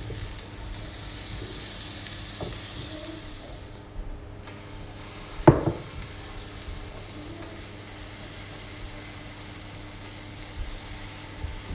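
Butter sizzling on the hot plates of a Tefal waffle iron, loudest in the first few seconds and then a softer steady hiss, with one sharp knock about five and a half seconds in. The plates are hot enough that the butter burns at once.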